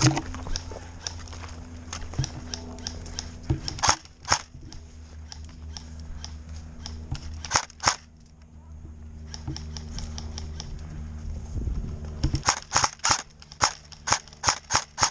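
Airsoft guns firing, sharp snapping shots: a pair about four seconds in, another pair near eight seconds, then a quick run of shots from about twelve seconds on, roughly three a second.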